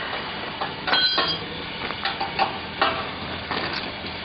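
Irregular metal clanks and knocks from the steel mould and frame of a QT4-24 concrete block machine being handled during a mould change. A sharp clank about a second in rings briefly.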